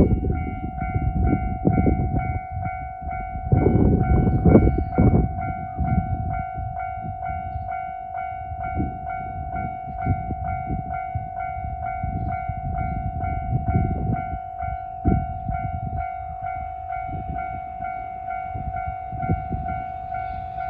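Japanese level-crossing alarm ringing with a steady repeating electronic tone while a freight train rolls past. The wagons' wheels rumble and thump in an uneven rhythm over the rail joints.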